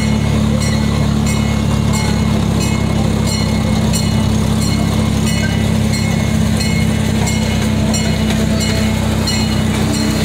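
Miniature amusement-park train running steadily, heard from an open passenger car: a constant engine hum with a light, regular clicking over it.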